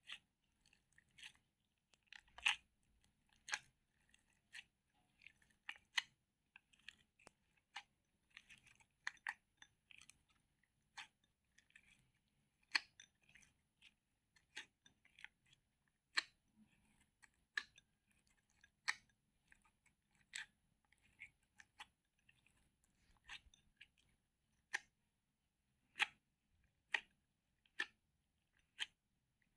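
Slime being worked by hand: faint, irregular sticky clicks and small pops, about one or two a second, with softer crackling between.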